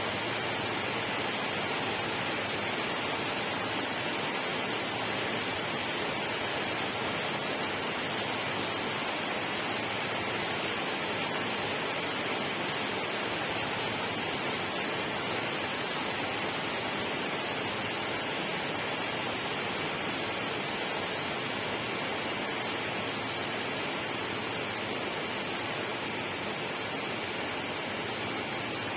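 Steady, unchanging rush of running or falling water, an even hiss spread across low and high pitches, with a faint steady tone in the upper range.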